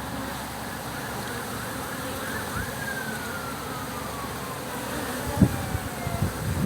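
Swarming honeybees buzzing, with many short rising and falling whines as bees fly past close by. A long slowly falling whine runs through the middle, and low thumps come near the end.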